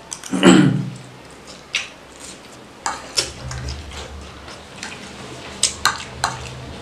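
A forkful of noodles slurped into the mouth about half a second in, the loudest sound here. It is followed by scattered sharp clicks of a metal fork against the serving tray as more noodles are gathered.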